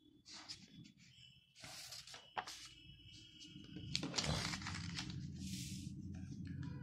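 Paper notebook pages being turned and handled: rustling and rubbing of paper, with a couple of sharp crinkles, and denser, louder handling from about four seconds in.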